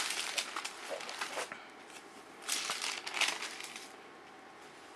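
Paper rustling as the thin pages of a book are turned, in two spells: one at the start and another about two and a half seconds in.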